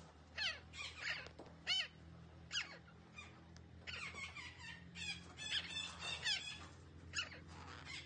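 Derbyan parakeet giving a string of short squawking calls, each a quick sweep in pitch, coming one or two at a time and then in a dense run about halfway through.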